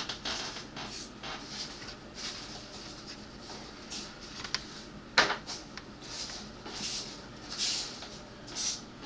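Handling noise: soft rustles and light clicks of plastic model-kit parts being moved about, with one sharper click about five seconds in.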